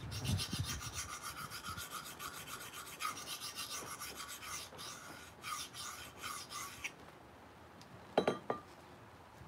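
A knife blade scraped in quick back-and-forth strokes across a small hand-held sharpening stone for about seven seconds, then stopping; a couple of short knocks follow about a second later.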